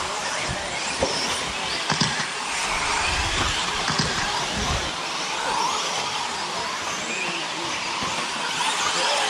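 Several 1/10-scale electric RC stadium trucks racing: brushless motors and drivetrains whining over a steady hiss, the pitch rising and falling as they speed up and slow down. A few low thumps come in the first half.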